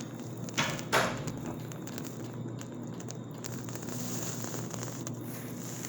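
Two quick coughs in succession about a second in, from a patient with a raw throat and drainage, over a steady low hum and faint crackle of room noise.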